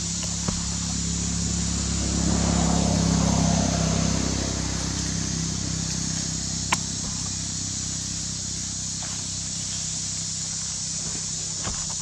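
A steady low motor hum with a high hiss over it. It swells and fades between about two and four and a half seconds in, like a motor vehicle passing. A single sharp click comes near seven seconds.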